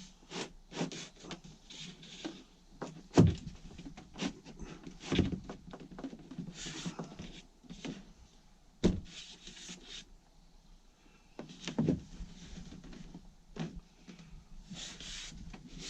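Irregular knocks and taps of wooden cable tray covers being handled and fitted into place, with short spells of scraping; the sharpest knock comes about three seconds in.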